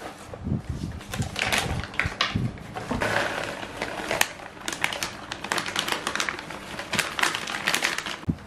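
Dry cat kibble pouring from its bag into a plastic storage container: a dense, rapid rattle of pellets hitting the plastic, starting about a second in, with the bag crinkling as it is handled.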